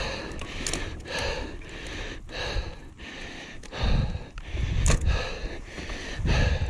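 A rider breathing hard and fast, one heavy breath about every second, out of breath from pushing a mountain bike on foot. Low rumbling on the microphone comes in from about four seconds in.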